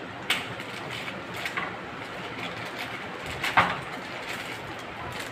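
Plastic packaging bag crinkling as it is handled to unwrap a monitor's base stand. There are a few sharp crinkles, about a third of a second in and around a second and a half, and the loudest comes about three and a half seconds in.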